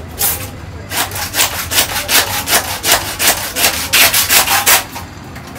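A butcher's hand saw cutting through a leg of meat and bone in quick back-and-forth rasping strokes, which stop about five seconds in.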